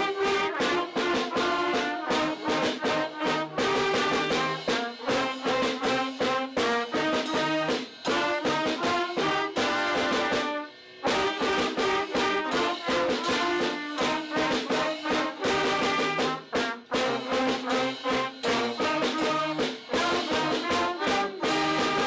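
Small school wind ensemble of saxophones, trumpets and a clarinet playing a tune, with a brief break about eleven seconds in before the playing resumes.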